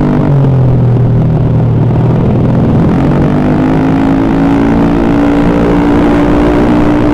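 Freshly rebuilt Honda BeAT carburettor scooter's single-cylinder four-stroke engine running steadily, its speed dropping slightly just after the start and rising smoothly again about three seconds in.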